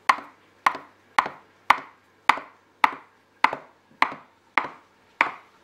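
Kitchen knife slicing through a log of date-filled semolina dough, the blade knocking on a wooden tabletop with each cut. Ten even cuts, about two a second.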